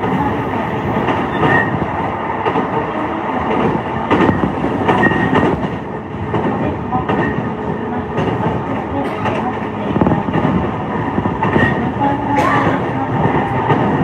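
Running noise heard inside a JR East E233-5000 series electric commuter train at speed: a steady rumble of wheels on rail, with occasional clacks over rail joints and a few brief high squeaks.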